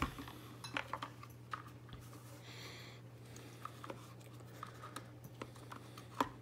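Scattered plastic clicks, knocks and wire rustling as the wiring is pushed and stuffed into an ice auger's plastic power-head housing, with one sharper knock near the end.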